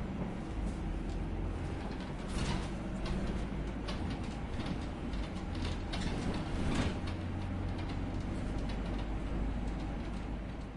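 City bus engine running as the bus pulls away, a steady low rumble, with a few short hissing bursts about two and a half, six and seven seconds in.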